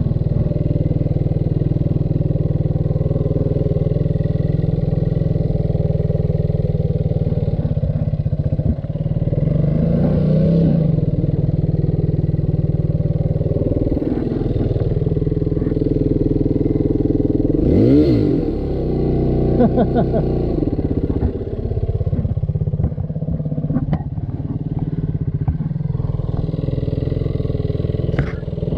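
Dirt bike engine running steadily, with a brief rev that sweeps up and down just past the middle, and a few knocks later on.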